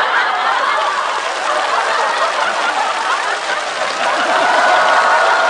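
Live audience laughing and applauding together.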